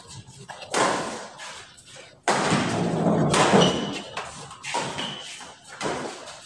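Badminton doubles rally: a run of sharp smacks of rackets striking the shuttlecock, each followed by a trailing echo, with the loudest hit a little past two seconds in.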